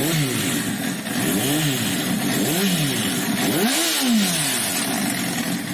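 Honda CBR sport motorcycle engine running and revved up and back down four times, about a second apart, returning to a steady idle between blips. This is the engine whose weak automatic cam chain tensioner lets the chain rattle from about 4,000–5,000 RPM.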